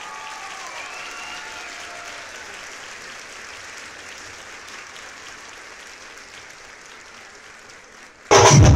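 A crowd applauding, with a few cheering voices near the start, the applause slowly dying away. Loud drumming cuts in suddenly just before the end.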